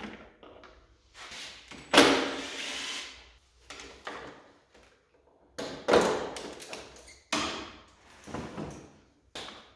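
Handling noise from the motorcycle's plastic fairing panels being taken off: five or six separate knocks, each trailing into a short scrape, the loudest about two seconds in.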